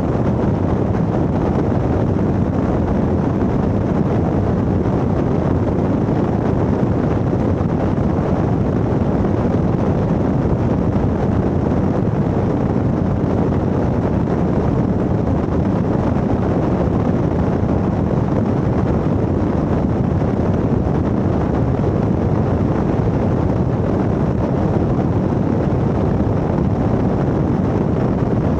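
1972 Ford Bronco race truck running at speed off-road: a steady, loud rumble of engine, drivetrain and wind noise that holds even throughout.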